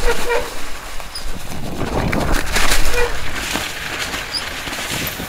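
Electric mountain bike being ridden down a snowy trail: tyres rolling over snow, with scattered knocks and rattles from the bike and wind buffeting the microphone.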